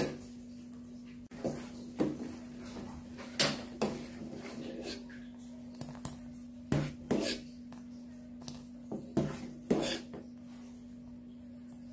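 A ladle knocking and scraping against a stainless steel pot while stirring a milky pudding mixture, in irregular taps every second or so. A steady low hum runs underneath.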